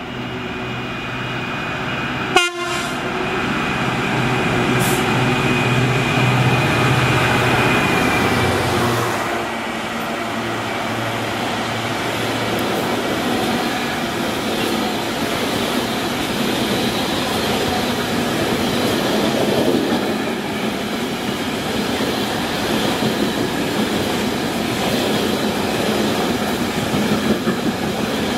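Diesel freight locomotive, a Class 66, approaching and passing at speed with its engine running and a steady horn-like tone that drops in pitch as it goes by, with a sharp click about two seconds in. It is followed by the long rumble and clatter of loaded aggregate wagons rolling past over the rails.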